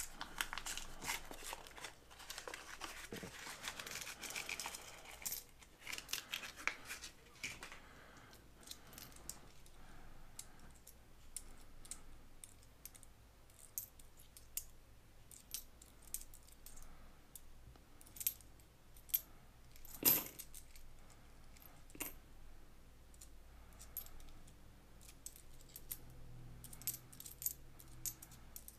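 Paper wrapper of a penny roll tearing and crinkling for the first few seconds, then old copper pennies clinking against each other as they are handled and slid between the fingers, in scattered sharp clicks. The loudest click comes about twenty seconds in.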